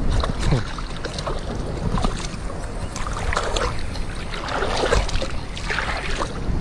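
Wind buffeting the microphone with a steady low rumble, while a hooked fish splashes and thrashes at the water's surface in irregular bursts, most of them in the second half.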